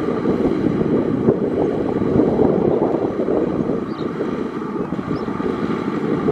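Tractor engine running steadily, a dense rumble with no breaks.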